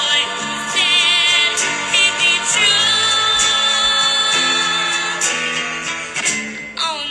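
Music with singing, held notes and a wavering vocal line.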